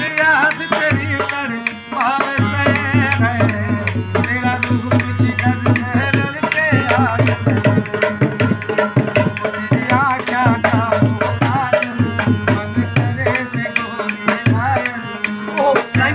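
Live Rajasthani folk music: a dholak barrel drum played in a quick steady rhythm over a sustained harmonium, with a voice singing a wavering melody.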